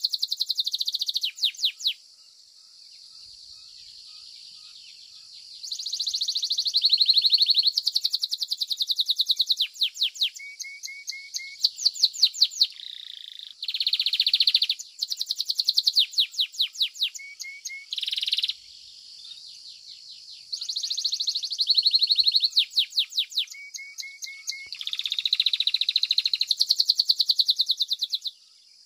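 Belgian domestic canary singing: long phrases of fast, high trills and rapid repeated notes, with short pauses between them.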